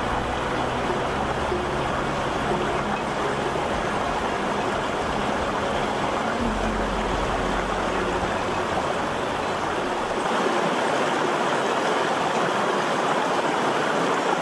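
Shallow mountain stream rushing over rocks: a steady rush of water, with a low rumble underneath that drops away about ten seconds in.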